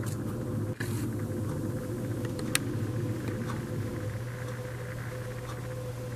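Steady low hum with a faint steady tone above it, and a couple of faint clicks.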